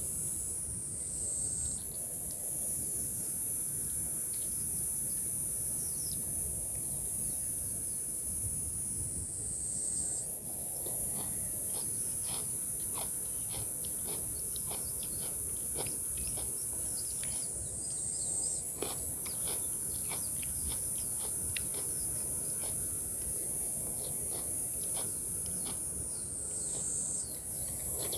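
High-pitched insect drone that slides down in pitch and breaks off briefly about every eight seconds before starting again. Over it come soft clicks and smacks of eating by hand from a banana leaf, with a low outdoor background rumble.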